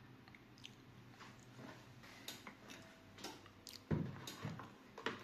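Quiet handling noise: faint scattered clicks and ticks, then a dull thump about four seconds in as a clear plastic bucket of water is set down on the table, followed by a few lighter knocks.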